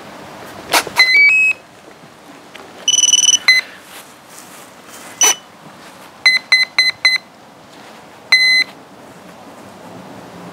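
Battery plugged into the FX-61 flying wing's power system with a sharp click, followed by the electronics' start-up beeps: three short tones rising in pitch, then a longer higher tone. Single beeps follow, then four quick beeps in a row and one longer beep near the end, the power-up and arming signals of the ESC and flight controller.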